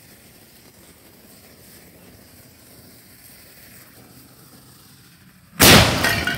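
An explosive charge inside a porcelain toilet goes off about five and a half seconds in: one sudden, very loud blast that shatters the toilet, then dies away over about a second.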